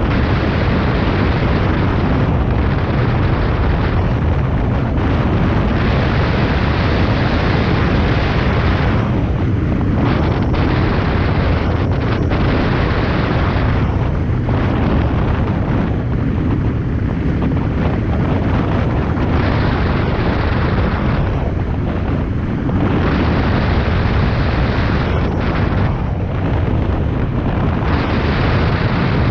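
Wind buffeting the microphone: a steady, heavy rush with a low rumble, varying a little every few seconds, typical of airflow over a camera during hang glider flight.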